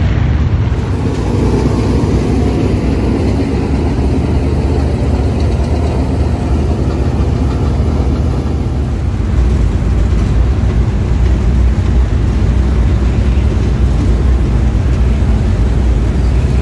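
Dirt-track race car engines running, a steady low rumble that grows heavier about halfway through.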